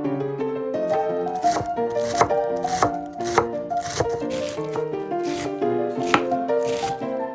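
Kitchen knife chopping vegetables on a cutting board, a steady series of cuts about twice a second, over piano background music.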